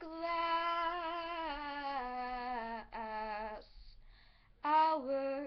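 A girl singing unaccompanied, with no instrument. She holds a long note for nearly three seconds that sinks slowly in pitch, then a lower note, and after a pause of about a second a brief note near the end.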